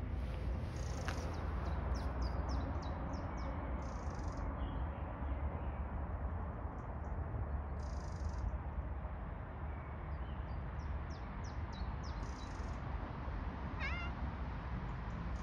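Domestic cat meowing once near the end, a short wavering call, over a steady low rumble. Runs of faint, short, high-pitched chirps come twice before it.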